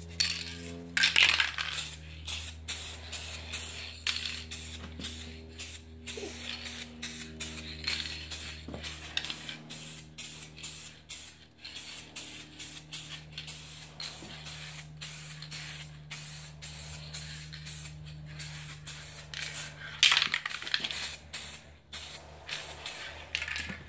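Aerosol spray-paint can hissing in many short bursts, about two a second, with a couple of longer sprays, as a light first coat goes onto a plastic bumper cover. A steady low hum runs underneath.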